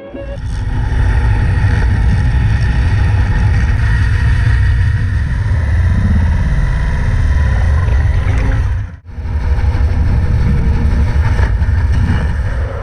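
Diver-operated hull-cleaning machine with rotating brushes, running underwater against a ship's hull: a loud, steady mechanical hum with a heavy low rumble. It cuts out briefly about nine seconds in.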